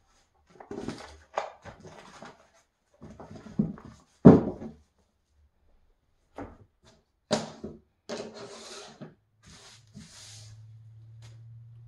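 Magazines being lifted off a wooden coffee table, with paper rustling and one sharp knock about four seconds in. After that come short clicks and rubbing as coasters are slid together and stacked. A low steady hum comes in near the end.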